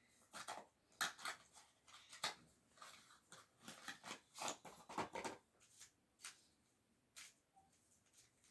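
Plastic triangle pyraminx puzzle being twisted to scramble it: a run of quick clicks and clacks from its turning pieces, thinning to a couple of single clicks after about five and a half seconds.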